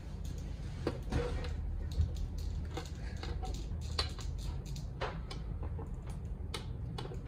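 Small plastic clicks and taps, irregular and scattered, as a spear accessory is worked into the hand of a 1:6 scale action figure. A steady low hum runs underneath.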